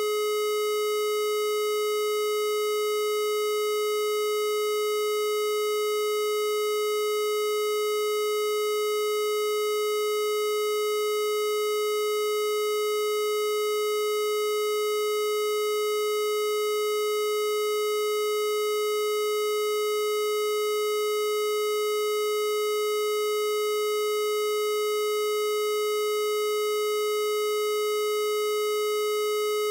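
A steady electronic tone at one pitch, around 430 Hz, with a buzzy edge from a ladder of fainter overtones. It holds unchanged throughout. It is a synthesized frequency-therapy ('Rife frequency') tone.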